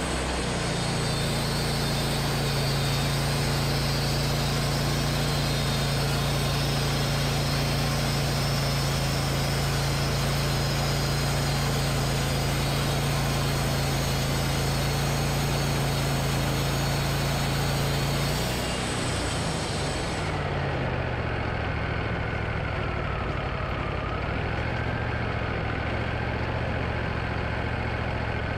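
Wood-Mizer LT40 band sawmill sawing through an ash log, its engine running steadily under load with the band blade's hiss through the wood. About 19 seconds in the cut ends: the hiss drops away and the engine runs on lower, with a whine that rises and dips.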